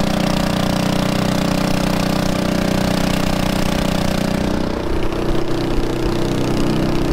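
Predator 212cc air-cooled single-cylinder four-stroke engine, fitted with a mud motor pipe, running steadily; its note changes about four and a half seconds in.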